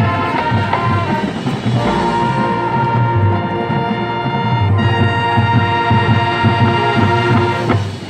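Marching band brass and percussion playing, with drums beating underneath, then holding one long final chord that cuts off sharply near the end: the close of the show.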